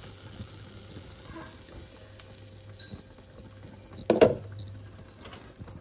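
Egg and silky tofu mixture cooking over low heat in a small nonstick pan, a faint steady sizzle and bubble. A single sharp knock about four seconds in.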